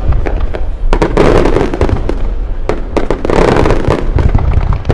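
Aerial fireworks going off in a dense barrage: many sharp bangs over continuous crackling that swells and eases every couple of seconds.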